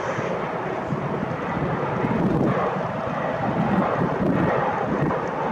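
Jet airliner engine noise, a steady rushing sound, mixed with gusty wind buffeting the microphone.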